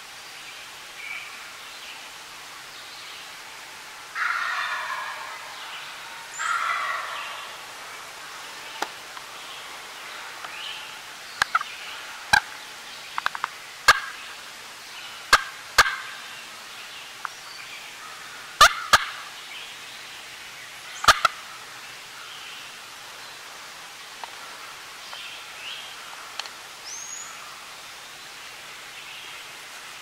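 A turkey gobbler gobbles twice, about four and six seconds in. A scattering of sharp clicks follows through the middle, and a small bird chirps near the end.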